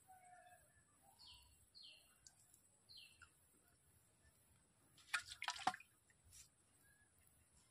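Faint bird chirps: three short falling notes in the first few seconds, then a brief cluster of sharp clicks about five seconds in.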